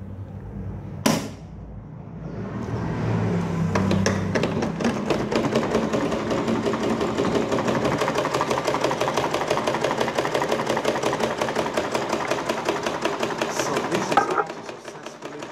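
Butterfly domestic sewing machine stitching at speed: a fast, even mechanical clatter that builds up over a couple of seconds, runs steadily and stops near the end. A single sharp click about a second in.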